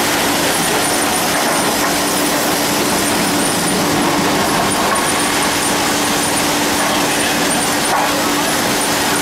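Steam-powered circular sawmill running: a steady, loud mechanical din from the spinning head saw and its machinery, with a steady hum underneath it.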